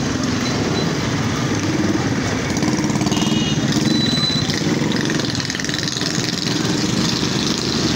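A small engine running steadily, with a brief high tone near the middle.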